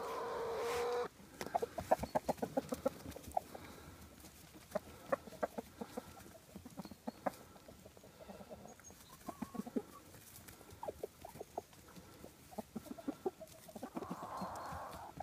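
A small flock of chickens clucking in many short, irregular notes while they peck and feed.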